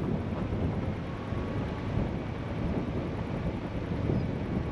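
A vehicle driving on a dirt road: a steady low rumble of tyres and running gear, with wind noise over it.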